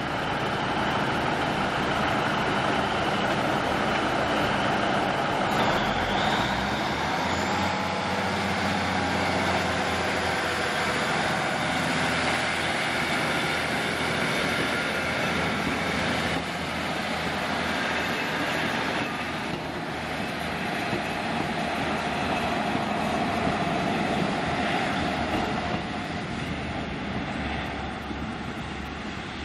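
Diesel engines of a First Great Western diesel multiple-unit train running steadily, with a rising whine about seven seconds in.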